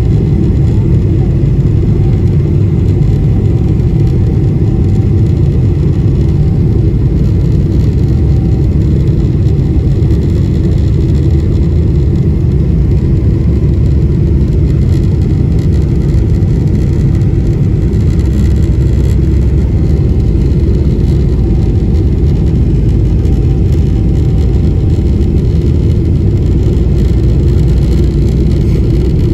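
Airliner cabin noise as the jet rolls slowly along the ground: a loud, steady low rumble of the wing-mounted jet engines and airframe, with no rise in thrust.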